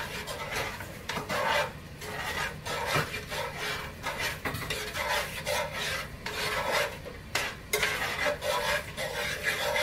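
Metal spoon stirring and scraping a thick, hot corn mixture around a skillet, a steady run of rasping strokes about two or three a second.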